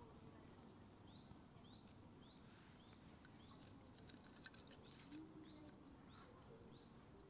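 Faint bird chirping: a short call repeated about twice a second, over near silence, with a few faint clicks about halfway through.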